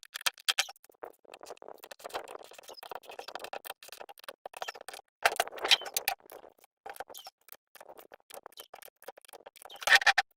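Irregular clicking, scraping and rattling of hand tools and small metal parts being handled during engine repair work, with louder clatters about five and a half seconds in and near the end.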